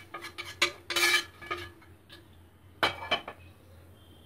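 Metal spoon clinking and scraping against cookware as butter tempering is scraped from a small pan into a pot of chole and stirred in: a quick run of clinks in the first second and a half, then a couple more about three seconds in.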